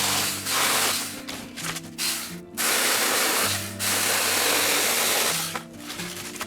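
Tomyvic 6-inch battery-powered mini chainsaw cutting through small branches in bursts: a short cut at the start, then a longer one from about two and a half seconds in, lasting about three seconds. Background music plays under it.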